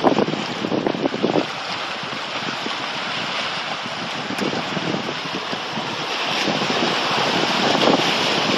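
Small waves washing in over a rocky shore, a steady rush of surf, with wind gusting against the microphone, most strongly in the first second or so.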